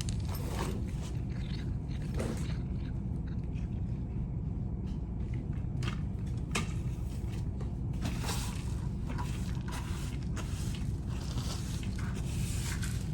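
A cat crunching dry kibble, with scattered small clicks and scrapes against the bowl and floor, over a steady low hum.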